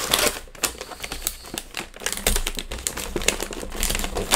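Gift-wrapping paper around a small box being torn open and crumpled by hand: a fast run of crackles and rips, loudest at the start and again near the end.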